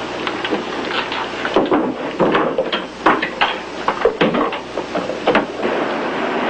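Irregular knocks, clicks and clatters of objects being handled on a workbench, a dozen or so sharp hits at uneven spacing.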